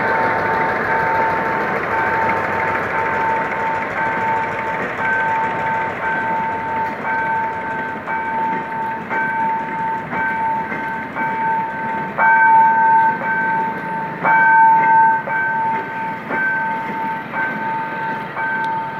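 A level-crossing warning signal beeps about once a second while a diesel-hauled passenger train rolls past with a rumble of wheels on rail. Two sharp clanks come a little past halfway.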